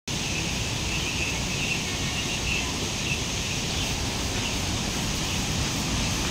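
Steady, even rushing of a waterfall.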